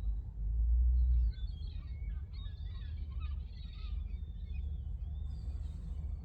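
Gulls calling, a cluster of high cries between about a second and a half and four and a half seconds in. Under them runs a steady low rumble, loudest in a short surge about a second in.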